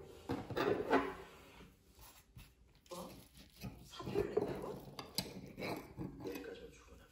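Fork and knife cutting into a crepe on a ceramic plate: irregular scraping of metal cutlery against the plate, with a sharp clink about five seconds in.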